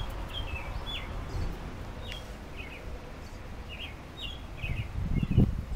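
A small songbird singing a run of short, quick chirps, over a steady low rumble of outdoor noise, with a louder low thump about five seconds in.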